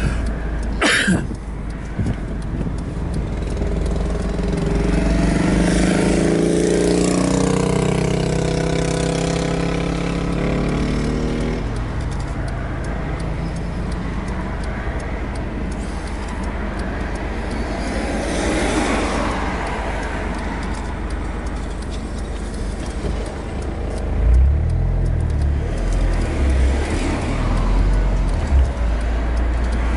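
Mazda MX-5 NC roadster's four-cylinder engine accelerating with the top down, its pitch rising for a few seconds and then holding steady, under a constant rush of wind and road noise. A few low thumps come near the end.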